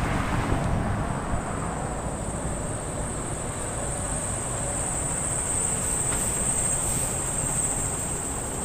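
Street traffic going by on a multi-lane road, a steady rumble of engines and tyres that is louder in the first second or so. A steady high-pitched whine sits over it, strongest in the second half.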